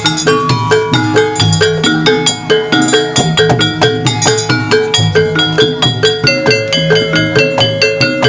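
Kuda kepang dance music: a gamelan-style ensemble of tuned struck percussion, metal gong-chimes and metallophones, playing a fast, even, repeating pattern of ringing notes.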